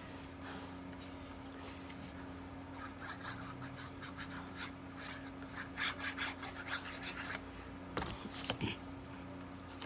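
Glue stick rubbed across the back of a small paper square in short, faint scratchy strokes, with the paper rustling as it is handled.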